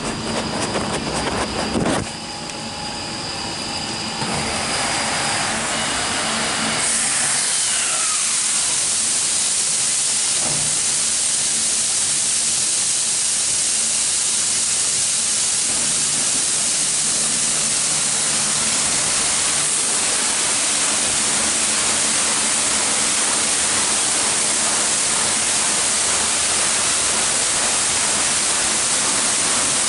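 Christ Genius Vitesse rollover car wash spraying water onto a car: a loud, steady hiss of spray that builds from about two seconds in and is at full strength by about seven seconds. At the very start, a busy mechanical rumble of the wash machinery comes before the spray.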